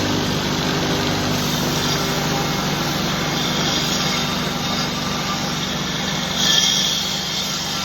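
Homemade 2x48-inch belt grinder running steadily, its motor humming under the hiss of the belt, with a brief louder, higher grinding hiss near the end.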